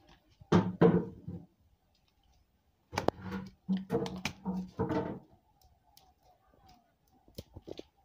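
Knocks and thuds in a small goat shed as Ajmeri goats shift about on the concrete floor, with a short call about half a second in and a run of short calls between about three and five seconds. A few sharp clicks near the end.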